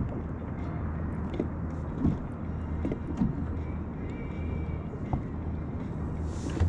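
A fishing kayak sitting on the open sea: a steady low rumble of wind and water around the hull, with a few light knocks about two and three seconds in.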